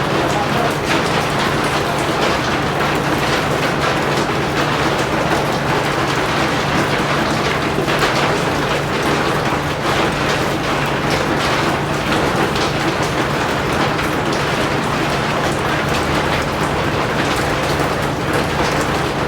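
Heavy rain falling steadily, with dense, fast drop impacts on a surface and a steady low hum underneath.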